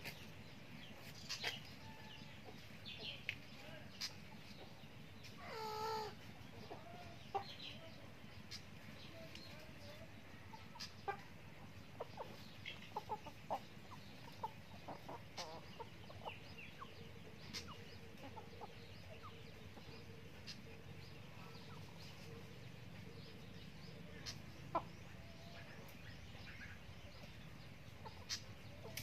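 Chickens clucking softly now and then, with one longer wavering call about six seconds in, over a faint steady low background hum.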